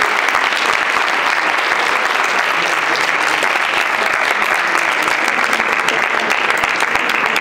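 Audience applause: many people clapping hard and steadily after a drum solo, a dense crackle of claps with a few cheers mixed in.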